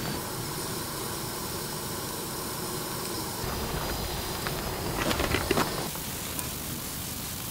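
Steady hiss of a portable gas stove burner heating a pot, with a few sharp clattering knocks about five seconds in.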